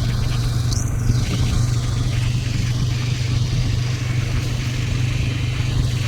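Motorcycle engine running at a steady speed on the road, a constant low hum under road noise.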